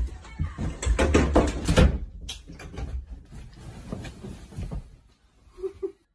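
A quick run of knocks and clatter about a second in, followed by scattered softer clicks and bumps.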